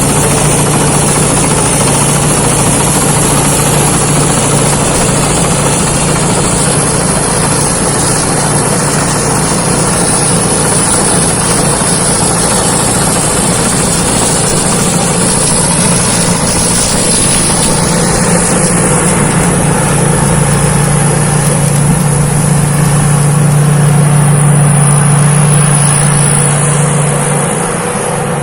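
Engine of a Thai Seng Yont rice combine harvester running steadily with a low drone; it swells a little louder, then eases off near the end.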